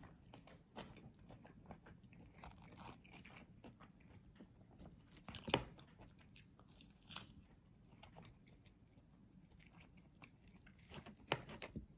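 A person chewing and biting food close to the microphone, with soft wet mouth clicks and a sharper crunch or clack about five and a half seconds in and again near the end.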